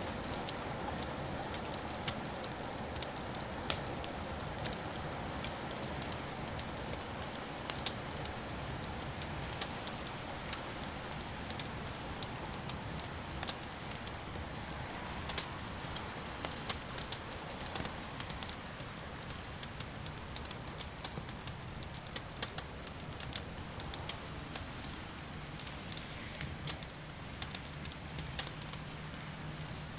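Wood fire crackling, with many sharp pops and snaps over a steady soft hiss. A low rumble of thunder dies away over the first few seconds.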